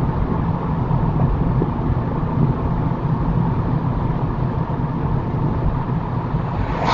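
Steady road and engine rumble of a car driving at about 30 mph, heard from inside the cabin.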